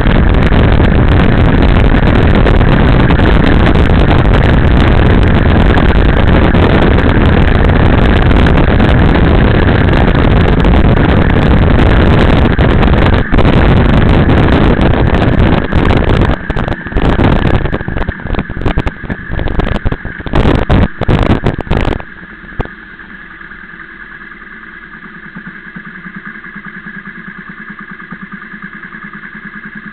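Loud wind rush and motorcycle engine noise while riding, buffeting as the bike slows. About three-quarters of the way in the rush cuts away, leaving the motorcycle engine idling steadily at a standstill.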